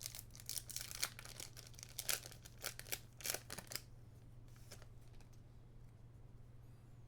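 Foil booster pack wrapper being torn open and crinkled by hand: a run of sharp crackling rips for about four seconds, then it goes quiet apart from a faint steady low hum.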